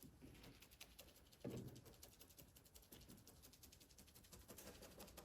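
Near silence, with faint rapid light ticking and one soft thump about a second and a half in.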